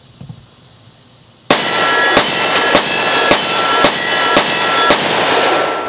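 Seven rapid shots from a Colt Wiley Clapp stainless Commander 1911 in .45 ACP, about two a second, starting about a second and a half in. It is firing hot +P hollow-point loads, and each shot's echo rings on into the next before trailing off near the end.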